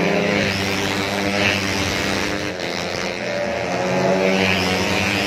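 Engines of 125cc four-stroke underbone racing motorcycles going past at speed, several engine notes overlapping, their pitch wavering up and down slightly.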